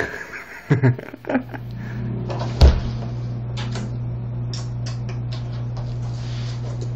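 A person and a small puppy moving about on a wooden floor: rustling and light taps, with one sharp knock about two and a half seconds in, over a steady low hum from about a second in.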